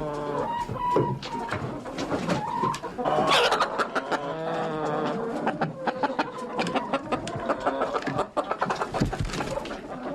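Several chickens clucking continuously, with calls overlapping, amid scratching and rustling as they move around; a louder squawk about three seconds in.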